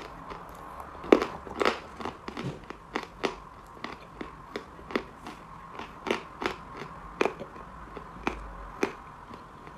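Mali chalk being bitten and chewed: a rapid run of sharp, dry crunches, two to three a second, the loudest about a second in.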